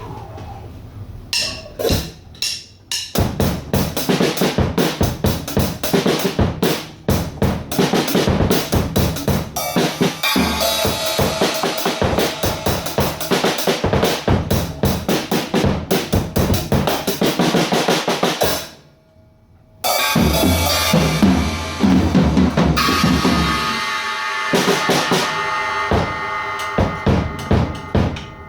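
A drum kit being played in fast, dense strokes, with kick drum, snare and cymbals, trying out a newly fitted bass drum pedal beater. The playing stops for about a second two-thirds of the way through, then starts again.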